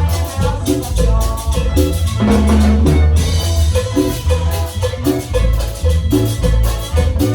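Instrumental Latin dance music from a band, with a steady rhythmic beat carried by bass and percussion.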